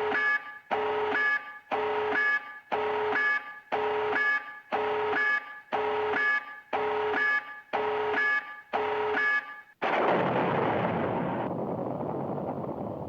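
Call of Duty tactical nuke countdown alarm, a repeating two-tone beeping about once a second, ten times. About ten seconds in, the nuke detonates in a loud explosion that rumbles and slowly fades.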